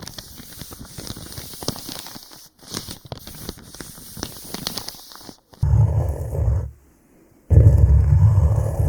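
Hands rubbing and massaging the microphone for an ASMR ear massage: soft crackly scratching for about five seconds, then loud, deep, muffled rubbing that stops briefly and starts again near the end.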